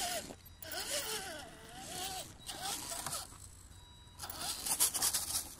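HSP 1/10-scale RC crawler's electric motor and geartrain whining in several throttle bursts, the pitch rising and falling with the throttle, over the hiss of snow-packed stock tires spinning in snow. The loudest burst comes near the end.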